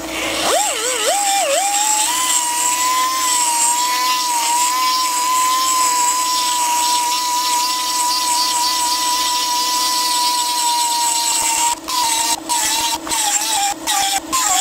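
Handheld rotary tool spinning up to a steady high whine as it grinds out the bore of an old differential pinion bearing, enlarging it so the bearing slides on and off the pinion. Near the end the pitch wavers and dips with clicks as the bit bites under load.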